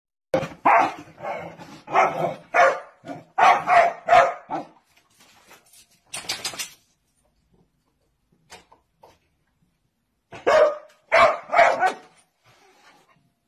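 A dog barking in quick strings of sharp barks: a run of about ten over the first few seconds, then a pause and a second short run of about four.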